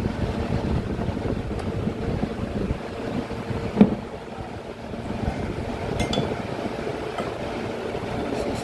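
A couple of sharp clinks, about 4 s and 6 s in, as the parts of a Honda City alternator, the housing and its removed rotor, are handled and set down on a wooden bench. A steady low rumble runs underneath.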